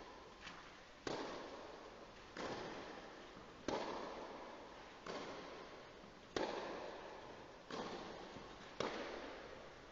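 Tennis rally: seven racket strokes on the ball, about one every second and a quarter, each ringing on in the echo of a large indoor hall. A fainter knock of the ball comes just before the first of them.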